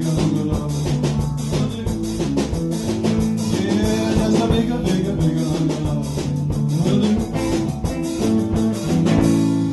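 Small rock and roll band playing live: electric guitar over a steady drum beat, with some singing. The drumming stops right at the end.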